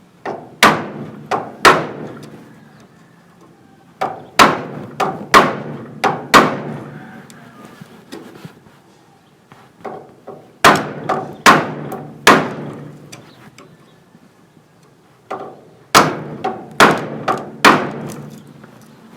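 Hammer blows driving a flat screwdriver into a wall panel to cut it open, in short groups of two to five sharp strikes with pauses between. Each strike rings briefly.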